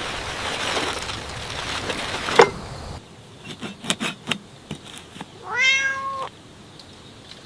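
A cat meows once, a single call lasting under a second, near the end, after a few light taps. Before that there is a steady rushing noise with one brief sharp sound in it, and the noise cuts off about three seconds in.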